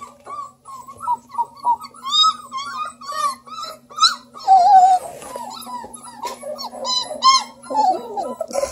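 Three-week-old Redbone Coonhound puppies whimpering and squeaking in a rapid string of short, high cries, with one longer wavering whine about four and a half seconds in.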